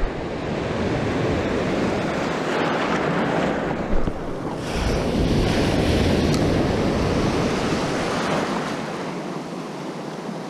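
Small surf waves breaking and foam washing up the beach in a steady rush that swells and eases, with wind rumbling on the microphone.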